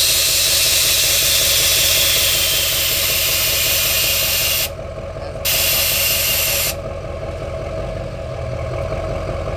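Truck's rear air-bag suspension hissing loudly as air is moved through its valves while it lifts and levels the trailer's weight. The hiss breaks off about five seconds in, comes back for just over a second, then stops. Under it the truck's diesel engine idles steadily.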